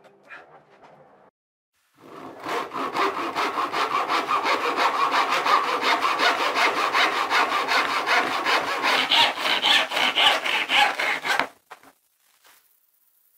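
Handsaw cutting through a softwood block in steady back-and-forth strokes, about three or four a second. It starts about two seconds in and stops shortly before the end.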